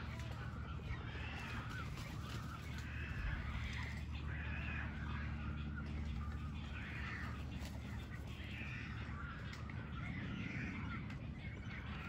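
A colony of roosting waterbirds calling: many overlapping squawking calls, one after another, with a steady low rumble underneath.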